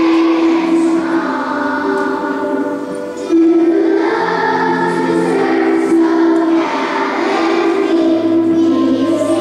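A choir singing a slow song in long held notes, with steady sustained accompaniment underneath.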